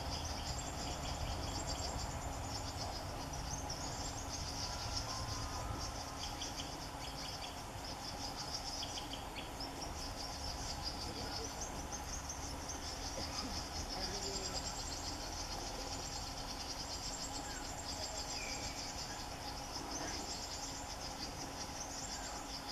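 Chorus of forest insects trilling high-pitched and rapidly pulsed, in repeated bouts of a few seconds each.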